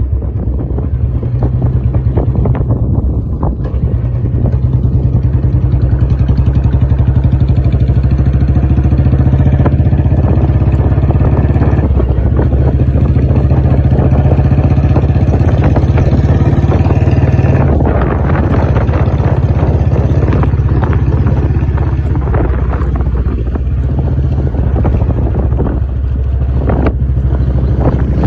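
Royal Enfield Bullet 350's single-cylinder engine running with a steady, deep exhaust beat, its level swelling and easing a little along the way.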